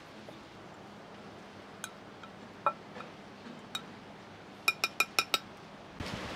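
Spoon clinking against a brass mortar as ground walnuts are scooped out: a few scattered light clinks, then a quick run of five ringing clinks near the end.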